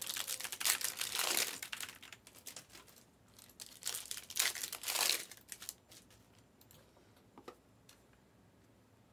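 Plastic wrapping crinkling and tearing as it is handled, in several crackling bursts over the first five seconds, then a few faint clicks.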